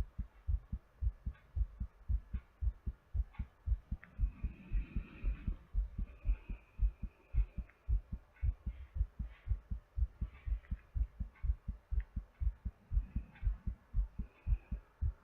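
A person's heartbeat, picked up close at the chest: a quick, even run of paired lub-dub thumps, the heart still beating fast while recovering from exercise. A softer, breathy sound swells over the beats about four seconds in and again near thirteen seconds.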